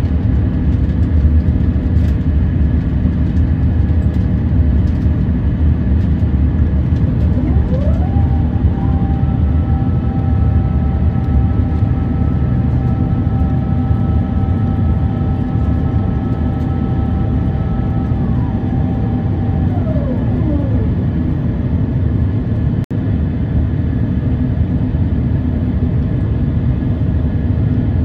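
Airbus A350-900's Rolls-Royce Trent XWB engines running at climb power, a steady low roar heard inside the cabin. About eight seconds in a whine rises in pitch, holds steady for about ten seconds, then falls away.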